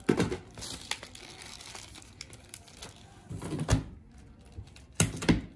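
Plastic shrink-wrap being torn and crinkled off a boxed set of acrylic paint tubes, in a few short rustling bursts with quieter handling between.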